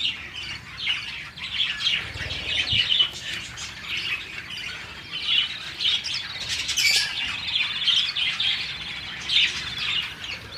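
A colony of budgerigars chattering, with many overlapping chirps and warbling squawks.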